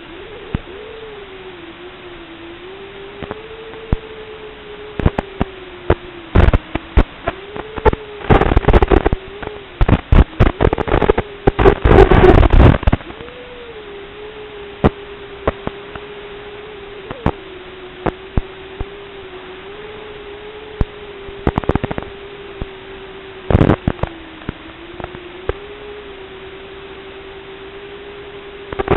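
Audio recorded by an FPV goggle DVR during a tiny-quadcopter flight: a steady hiss with one slightly wavering tone under it, broken by loud crackling bursts that cluster about eight to thirteen seconds in and again near twenty-four seconds.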